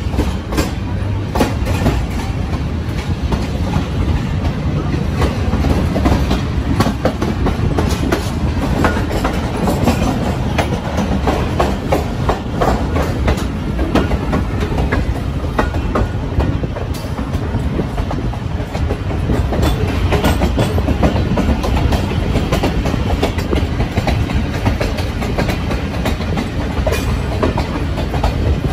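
Passenger train running on the rails: a steady rumble with dense rattling and sharp clicks of wheels passing over rail joints.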